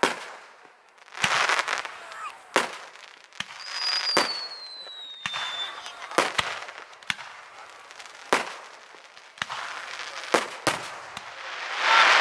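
Fireworks display: aerial shells bursting in sharp bangs every second or two. Near the middle a high whistle glides slowly downward for about two seconds.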